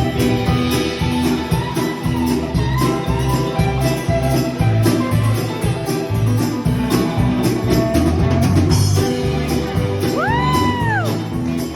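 Live band playing an instrumental break in an up-tempo country song, with a steady beat. About ten seconds in, a single tone swoops up and back down over about a second.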